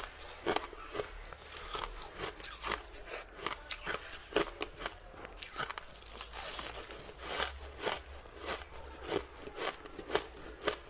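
Close-miked crunching as hard-packed shaved ice is bitten and chewed: a steady run of sharp, crisp crunches, about two to three a second.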